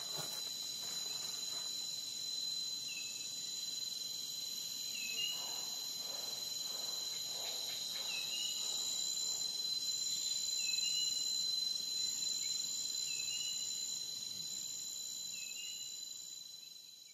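Steady, high-pitched chorus of insects, with a short chirp repeating every two to three seconds.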